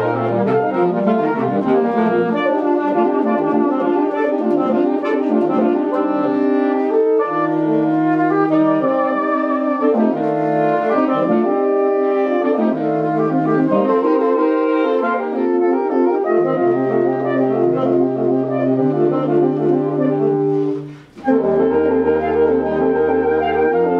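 Saxophone quartet of soprano, alto, tenor and baritone saxophones playing a busy, rhythmic ensemble passage, the baritone holding long low notes under the moving upper parts. The whole group cuts off for a moment a few seconds before the end, then comes back in together.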